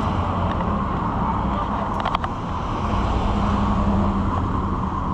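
Engine running steadily: a low rumble with a constant hum, with a brief cluster of clicks about two seconds in.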